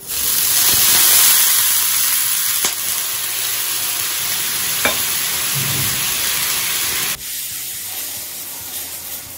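Water sprinkled onto a hot non-stick dosa tawa, sizzling as it cools the pan before the next dosa. The loud hiss starts suddenly, then drops off sharply about seven seconds in, leaving a quieter hiss.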